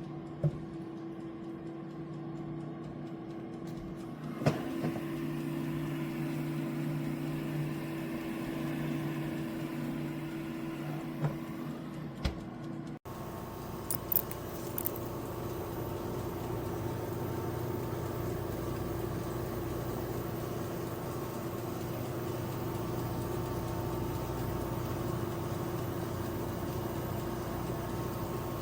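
Air fryer toaster oven running, its convection fan giving a steady whirring hum, with a few sharp clicks in the first half.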